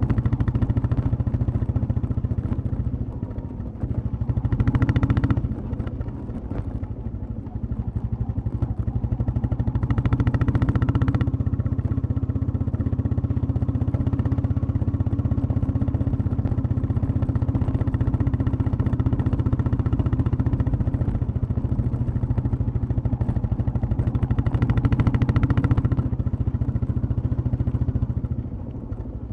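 Royal Enfield Classic 350 single-cylinder motorcycle running under way, its exhaust thumping steadily at cruising revs. It swells louder briefly a few times and eases off near the end.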